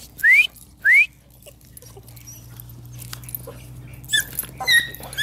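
Pocket beagle puppies yelping in rough play: three quick high rising squeals in about the first second, then a few shorter, quieter whines near the end.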